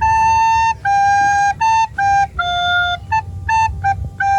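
Recorder playing a simple beginner's tune from four notes (si, la, sol and fa), one clear note at a time with short breaks, some held longer and some quick.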